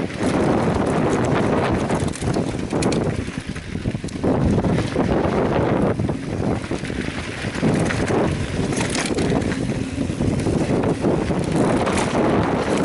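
Wind buffeting the camera's microphone during a mountain-bike descent, a heavy rushing noise that surges and eases. Through it come short clicks and rattles from the bike over the trail.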